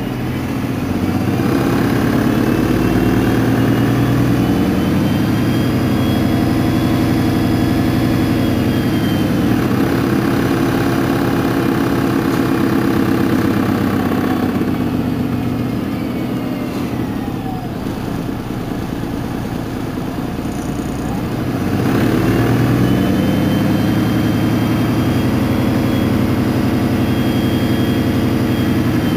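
MAN NL223 city bus's six-cylinder diesel engine running while the bus stands, with a whine that rises and falls in pitch above it. The engine swells louder about a second in, drops back quieter for several seconds past the middle, then swells again near the end.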